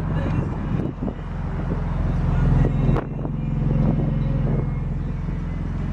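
BMW M3's 3.2-litre inline-six idling steadily through an aftermarket Borla exhaust with quad tips, heard close to the tailpipes. The low exhaust note swells for a moment near the middle and drops back about three seconds in.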